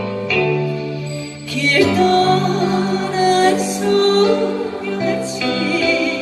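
Music: a slow song with a sustained melody over long, held bass notes.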